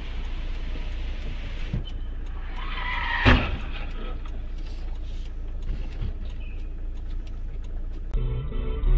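Car driving, recorded by a dash cam: steady engine and road rumble, with one short louder sound about three seconds in. Near the end the sound cuts abruptly to music.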